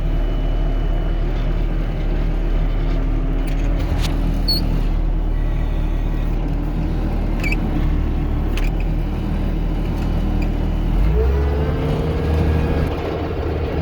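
Skid-steer loader engine running steadily as the machine drives, with a few short clanks. About eleven seconds in, the engine speeds up and its note rises to a higher steady pitch.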